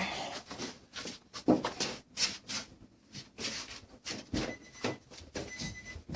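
Clunks and rustling of handling, then about four and a half seconds in a steady warning chime starts beeping about once a second, typical of the Nissan Frontier's dashboard chime before the engine is started.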